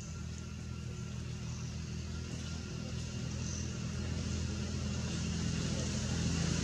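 A motor vehicle's engine running steadily, its hum growing gradually louder.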